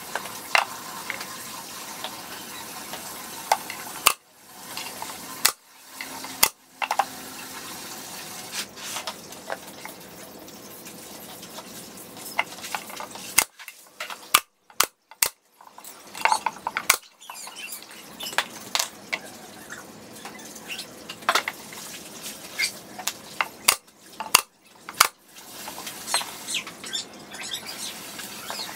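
SOYI pneumatic brad nailer shooting brads into MDF, heard as sharp single clacks at irregular intervals, mixed with knocks of loose MDF strips being handled.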